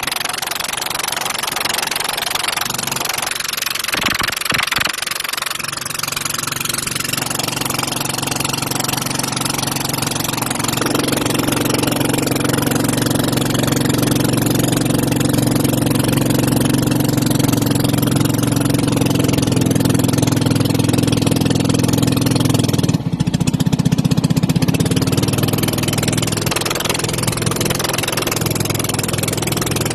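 Vehicle engine running at a steady speed under wind and road noise. Its hum holds a steady pitch, stepping up around a third of the way in and changing abruptly about 23 seconds in.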